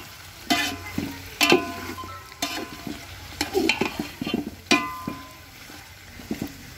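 Long metal ladle stirring meat frying in oil in a large aluminium pot: it scrapes through the meat and knocks against the pot about once a second, each knock ringing briefly like a struck metal pot, over a light sizzle of frying.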